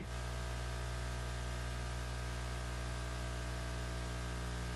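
Steady hiss with a low electrical hum and its overtones, and no speech: the noise floor of the call's audio line.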